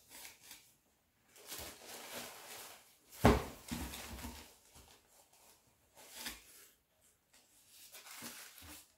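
Tissue paper and fabric dust bags rustling as they are handled, in several short bursts with quiet gaps, and a single sharp knock a little over three seconds in.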